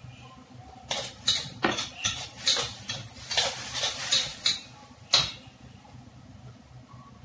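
Metal spatula scraping and clanking against a wok while stirring: a quick run of strokes for about four seconds, starting about a second in and ending with a sharp clank, the loudest of them.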